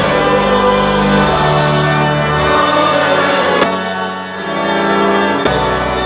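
Pipe organ playing full, sustained chords that change every second or so. Its deep pedal bass drops out about halfway through and comes back in near the end.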